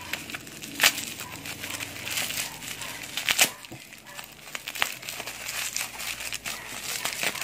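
Thin clear plastic wrapper crinkling and rustling as it is peeled off a microfiber towel by hand, with a few sharper crackles.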